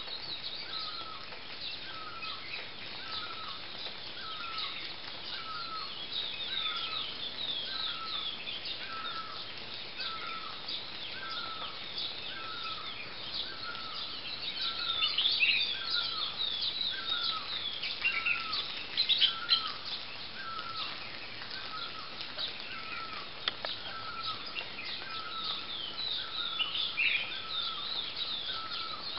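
Birds calling in trees. One bird repeats the same short note over and over, a little more than once a second, over a busy chorus of higher chirps and twitters that swells about halfway through.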